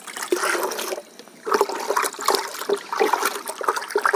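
Liquid poured from a plastic mug into a bucket of water, then stirred hard with a metal rod, sloshing and splashing as a pesticide spray is mixed.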